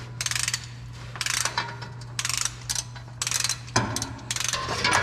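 Hand ratchet wrench clicking through repeated strokes, roughly one every second, with a steady low hum underneath.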